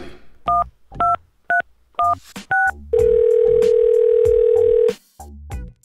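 Telephone being dialled: five touch-tone keypad beeps about half a second apart, then one steady ringing tone for about two seconds as the call goes through.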